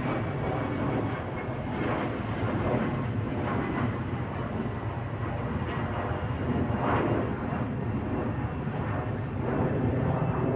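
Jet airliner climbing out overhead after takeoff: a steady, broad rumble of engine noise that holds at a fairly even level.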